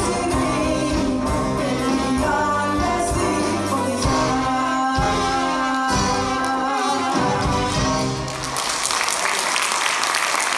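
Military band of brass, saxophones, drum kit and keyboard with a female singer ending a Greek song on a long held final note. The music stops about eight and a half seconds in and the audience applauds.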